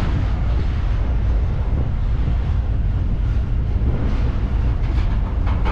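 Steady low rumble of a CPKC diesel freight train running by, with wind buffeting the microphone.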